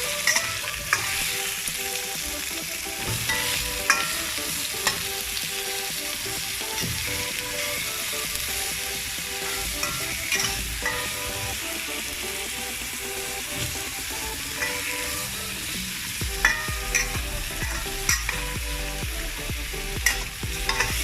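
Sweet potato pieces frying in hot oil with sautéed garlic, onion and ginger: a steady sizzle, while a utensil stirs the pan and now and then clicks and scrapes against it.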